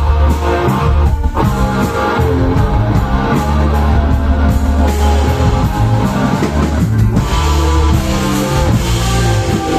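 Rock band playing live: electric guitar, bass guitar and drum kit, with heavy, steady bass notes. The band drops out briefly about a second in, and the cymbals get brighter after about seven seconds.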